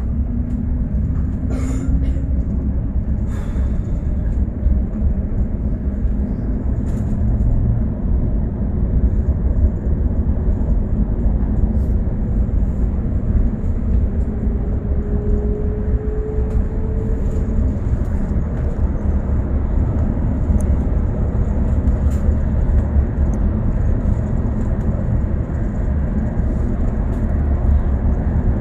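A bus under way: a steady low rumble of engine and road noise, with occasional light clicks and rattles and a faint rising whine about halfway through.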